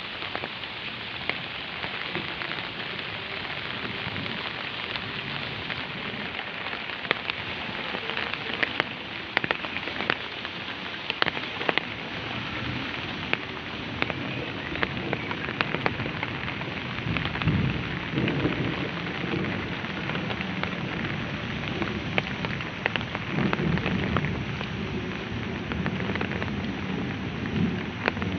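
Heavy rain falling steadily, with many sharp drops tapping close by. Twice in the second half a low rumble swells up and fades.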